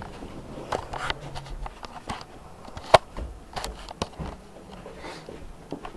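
Handling noise from a handheld camera held against clothing: rustling and scattered clicks and knocks, the loudest a sharp click about three seconds in.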